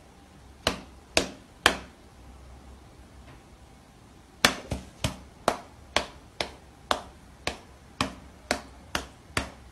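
Sharp taps on a glass door as a person's hand and a standing Bengal cat's paw meet on either side of the pane. Three taps come in the first two seconds, then a steady run of about two taps a second through the last five seconds.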